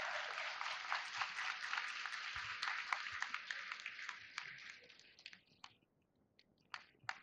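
Applause from a crowd in a hall: dense clapping that fades out about five seconds in, then a few scattered single claps.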